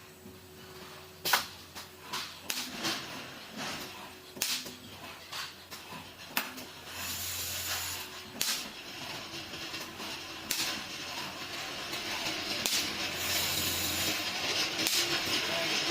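CNC automatic stud welding machine at work, giving a sharp crack about every two seconds as it welds studs, with bursts of air hissing and a steady low hum underneath.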